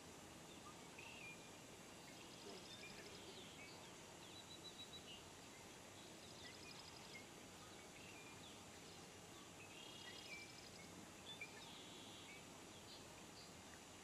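Faint high chirps and short rapid trills of small birds, scattered through, over a steady hiss.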